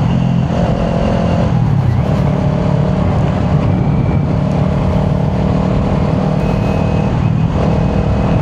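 Kawasaki Ninja 400 parallel-twin engine through a Yoshimura exhaust, running at steady revs under way. The engine note breaks briefly twice, about a second and a half in and near the end.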